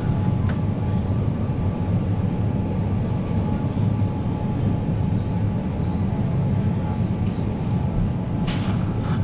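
Mobility scooter's electric drive running as it rolls slowly along, a steady low rumble with a faint, even whine. A brief hiss comes near the end.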